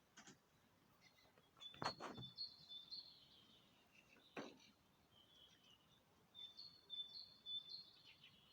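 Birds singing in the early-morning quiet: two song phrases of high, clear notes, each about a second and a half long, the second coming about six seconds in. Two brief knocks sound, the louder one about two seconds in and another about four and a half seconds in.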